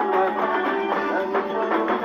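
Live ohangla band music with plucked, guitar-like melodic lines over a steady beat. It sounds thin, with almost no bass.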